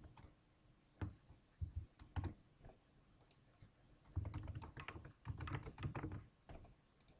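Typing on a computer keyboard: a few separate key clicks in the first couple of seconds, then a quick run of a dozen or so keystrokes about four seconds in.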